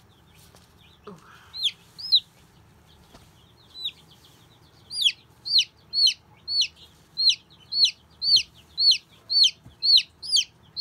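Baby chick peeping: high, short, piercing peeps, a few scattered at first, then a steady run of about two a second from halfway through. These are the loud repeated distress calls of an injured chick being held.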